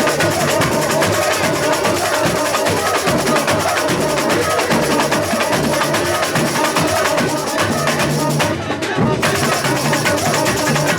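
Samba school bateria playing a dense, driving samba rhythm on many drums and percussion instruments. The top end briefly drops out about eight and a half seconds in.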